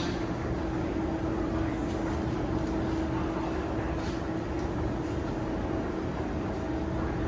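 Steady machine hum: one constant low tone over a broad background rumble, with a few faint ticks.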